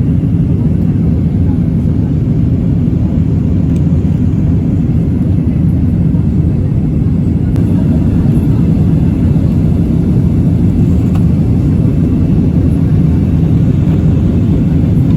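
Steady low rumble of a jet airliner's engines and airflow, heard from inside the passenger cabin. It stays level throughout with no sudden changes.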